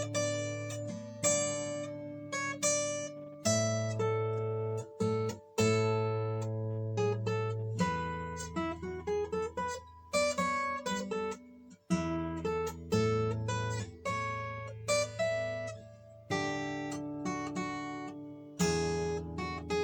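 Yamaha steel-string acoustic guitar played freely: chords struck every second or two and left to ring out, with a run of single notes climbing in pitch in the middle.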